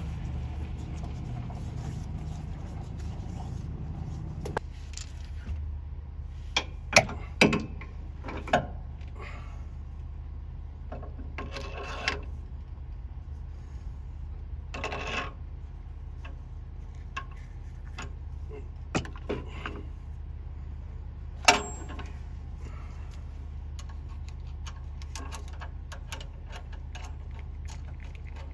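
Metal clinks and knocks of steel adapters and a hydraulic cylinder being handled and fitted onto a truck's cab bushing bracket, a dozen or so sharp strikes scattered through, the loudest about seven and twenty-one seconds in. Under them runs a steady low hum, with a rushing noise that cuts off about four seconds in.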